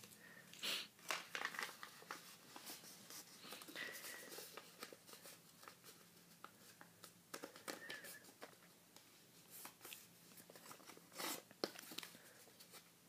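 A sheet of paper rustling and crinkling in the hands as it is handled and creased, in soft irregular crackles, the loudest about a second in and again near the end.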